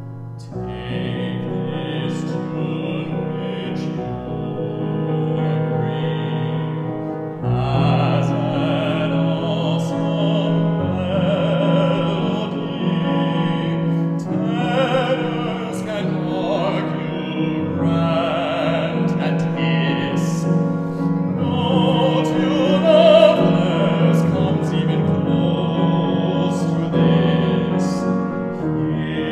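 An operatic baritone singing with vibrato, accompanying himself on piano.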